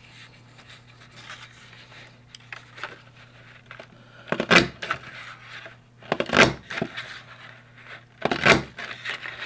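Creative Memories Border Maker punching through purple cardstock: three short clunks about two seconds apart, after a few seconds of faint paper rustling as the sheet is slid into the punch.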